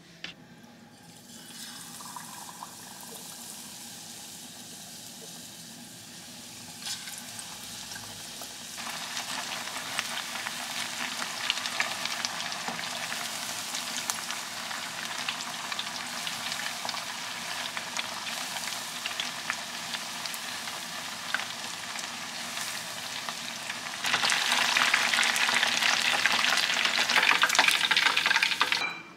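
Battered chicken pieces deep-frying in a small pot of hot oil: steady sizzling with many crackling pops. It gets louder a few seconds in and is loudest over the last five seconds, then cuts off suddenly.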